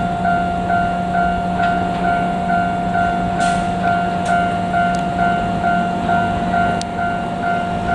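Japanese level crossing warning alarm ringing steadily at about two strokes a second, over the low steady running sound of a KiHa 200 diesel railcar.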